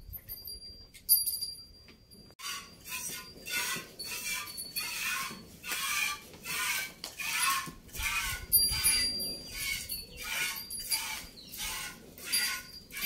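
Hand milking: jets of milk squirting into a steel pot, a rhythmic hissing swish about twice a second that starts a couple of seconds in. The faint tinkle of a small bell comes and goes over it.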